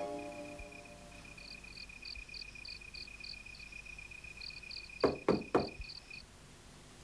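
Crickets chirping steadily in a quiet room ambience, then three quick knocks on a door about five seconds in.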